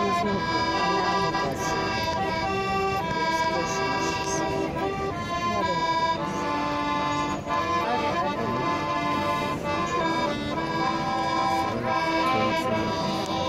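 Piano accordion playing a tune: held reedy notes stepping through a melody over sustained chords.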